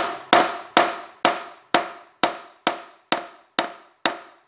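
A hammer strikes a metal driver in a steady rhythm, about two blows a second, each blow with a short metallic ring. The blows are tapping a new pilot bushing into the rear of a small-block Chevy 350's crankshaft, and the bushing is still going in, not yet seated.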